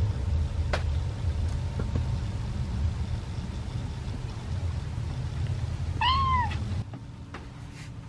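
A kitten meows once near the end, a short high mew that rises and falls in pitch, over a low steady rumble.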